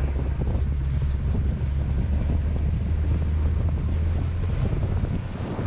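Boat motor running steadily under way, a constant low drone, with wind buffeting the microphone and water rushing past the hull.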